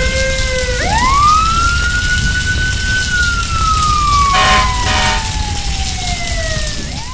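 Emergency-vehicle siren wailing: the pitch sweeps up quickly about a second in, then falls slowly over the next several seconds, over a steady rumbling hiss. Two short horn blasts sound near the middle.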